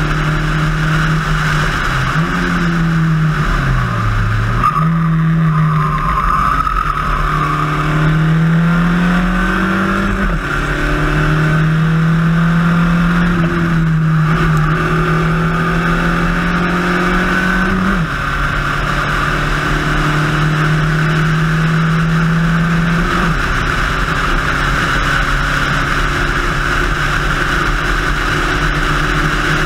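Spec Racer Ford race car's four-cylinder engine pulling hard at high revs. Its pitch climbs slowly and then drops abruptly several times as the driver changes gear and brakes. Steady wind and road noise runs underneath.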